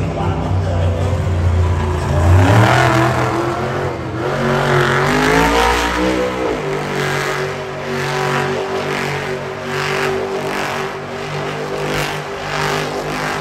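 Monster truck engine revving hard, its pitch climbing twice in the first six seconds, then running with a string of short repeated surges.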